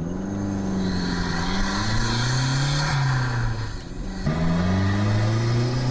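Turbocharged Toyota MR2 AW11 four-cylinder accelerating hard under load, its engine note climbing in pitch through the revs with a loud turbo whoosh over it. A gear change about four seconds in is followed by the engine pulling up again.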